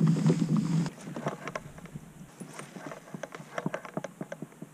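Light, irregular clicks and taps of gear on a fishing kayak, several a second, after a steady low hum cuts off about a second in.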